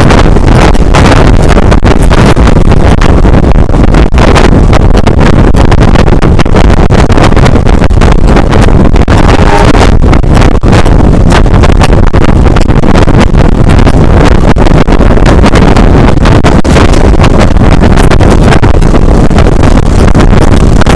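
Loud, continuous wind buffeting on a camera microphone held outside a moving passenger train, a steady rush broken by constant rapid crackling gusts. The microphone has no external windscreen, so the wind drowns out the rest.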